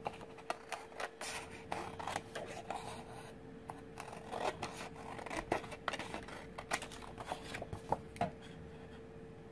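Sheets of cardstock being handled, lifted and slid against each other: irregular paper rustles and scrapes with light, sharp taps.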